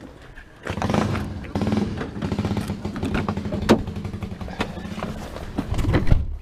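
Rustling and knocking from a body-worn camera as a car door is opened and someone climbs into the driver's seat, with a sharp click about halfway through and another near the end. An engine runs steadily underneath.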